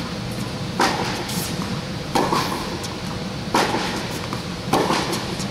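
Tennis ball struck by rackets in a baseline rally: four crisp pops about one and a half seconds apart, alternating between the two players, each echoing briefly in the large indoor court hall. A steady low hum runs underneath.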